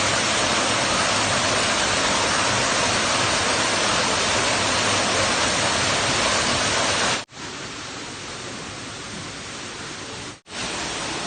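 Waterfall: a steady, loud rush of falling water. About seven seconds in it cuts off abruptly and comes back noticeably quieter, then cuts once more briefly near the end.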